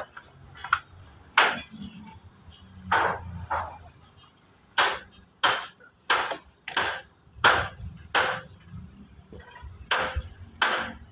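Hammer blows on steel, about fifteen sharp strikes with a bright metallic ring, a few spaced out at first and coming faster and more regularly from about halfway through.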